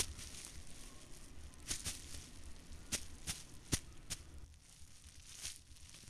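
Hand hoe chopping into damp earth: a string of sharp strikes at uneven intervals, with soil and debris rustling between them.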